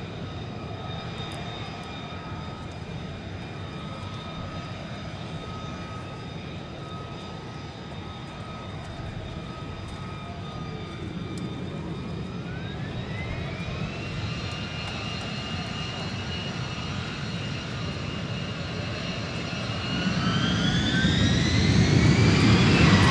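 F-35B's Pratt & Whitney F135 turbofan running on the runway with a steady rumble and whine. About halfway through, a high whine glides up in pitch and levels off, and near the end the engine spools up, louder and higher, as the throttle is advanced with the lift-fan doors open.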